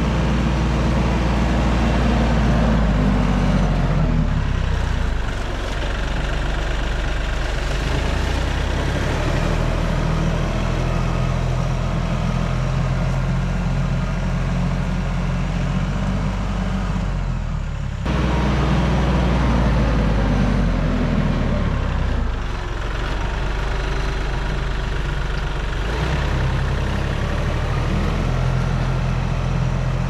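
Compact diesel tractor running steadily as it back-drags loose soil with its lowered front loader bucket. The engine note shifts a few times and breaks off sharply for an instant about two-thirds of the way through.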